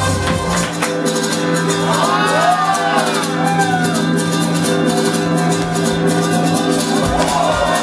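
Loud music with a beat. The bass drops out about half a second in and comes back around seven seconds, with swooping, gliding sounds over the held notes around two to three seconds and again near the end.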